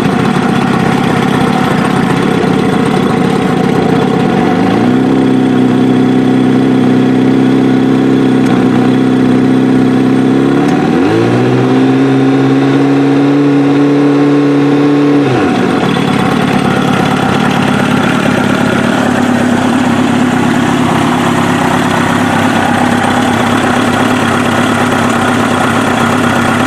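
Kawasaki ZX-7R's inline-four engine on Keihin FCR carburettors running while warming up. About four and a half seconds in its speed rises and is held steady. About eleven seconds in it rises again and is held. About fifteen seconds in it drops back to a steady idle.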